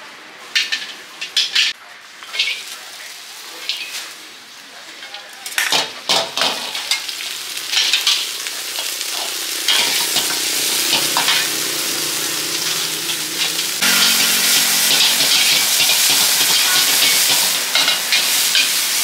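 Metal spatula knocking and scraping against a steel wok, then hot oil sizzling as bean sprouts are stir-fried. The sizzle builds about a third of the way in and jumps louder again past the middle, with the spatula scraping through it.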